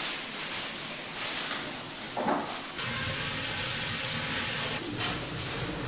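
Straw rustling as it is stuffed into the firebox of a brick cooking stove, then the straw fire burning with a steady crackling hiss.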